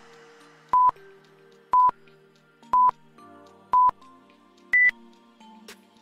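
Countdown timer beeps, one per second: four short beeps at the same pitch, then a last, higher-pitched beep that marks time up. Soft background music plays underneath.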